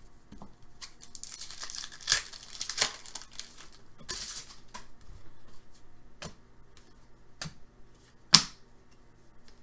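Trading card pack wrapper being torn open and crinkled in two rustling spells. Then a few sharp clicks and taps as the stack of cards is handled, the loudest near the end.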